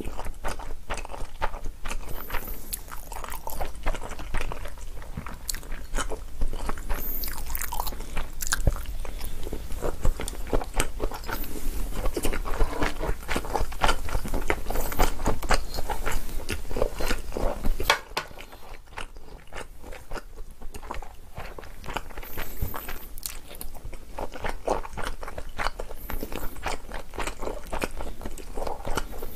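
Close-miked chewing and mouth sounds of someone eating Chapagetti black-bean noodles: a steady run of wet, irregular chewing clicks, softer for a few seconds past the middle.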